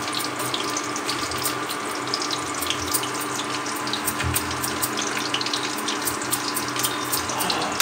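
Oil sizzling steadily in a pan on an induction cooktop: a constant hiss with scattered small crackles, over a faint steady hum.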